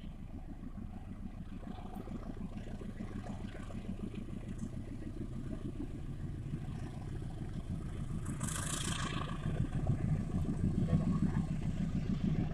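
Low rumble of an approaching diesel-electric locomotive hauling a passenger train, growing steadily louder as it draws nearer. A brief hiss comes about two-thirds of the way through.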